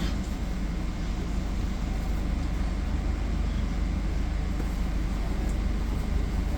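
Steady low rumble and running noise of a passenger train.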